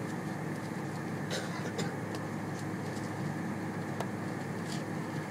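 Boeing 747-400's jet engines at take-off power heard from inside the cabin: a steady roar, with a few brief clicks.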